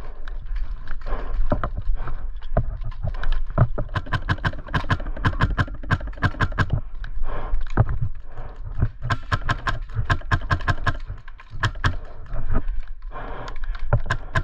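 Airsoft guns firing in rapid strings of sharp snapping shots, several shots a second, over a steady low rumble.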